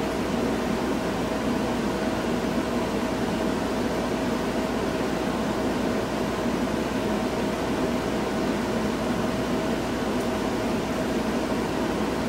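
Steady mechanical whir like a fan or air conditioner, with a constant low hum and a faint steady tone, unchanging throughout.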